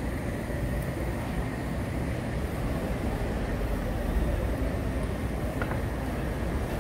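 Steady city-street ambience: a continuous low rumble of traffic with no distinct event standing out.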